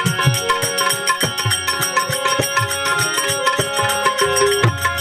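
Instrumental passage of a Gujarati bhajan: tabla-style drum strokes keep a steady beat under jingling hand cymbals or tambourine, while held melody notes change pitch every second or so.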